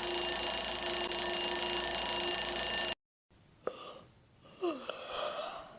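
Loud, continuous bell ringing that stops abruptly about three seconds in. After a short gap come a few faint clicks and a brief squeak falling in pitch.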